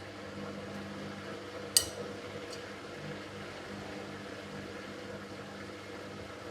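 Miele W5801 WPS washing machine running a wash cycle: a steady hum from the machine, with a sharp click about two seconds in and a fainter click just after.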